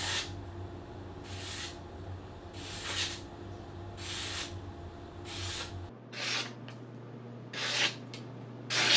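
Freshly sharpened gyuto kitchen knife slicing through a sheet of glossy printed paper in repeated strokes, each a short hiss, about one every second and a half. The blade passes cleanly, the sign of a sharp edge.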